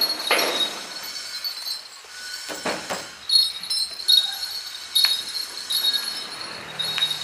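Light metallic jingling and clinking recurs throughout, with a few short rustling swishes near the start and about three seconds in.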